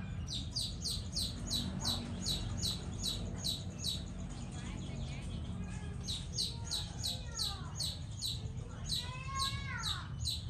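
A small bird chirping over and over, about three short high chirps a second, pausing for a couple of seconds midway. A few lower calls that slide down in pitch come in near the end.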